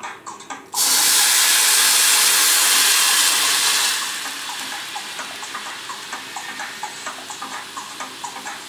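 Water poured into a caldero of rice toasted in hot oil: a sudden loud sizzle starts less than a second in and holds for about three seconds. It then drops to a quieter steady sizzle as the water boils over the rice.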